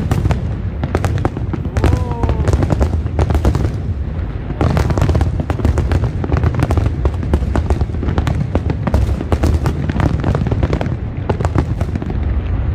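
Fireworks going off: a dense, rapid run of sharp bangs and crackles over a continuous low rumble.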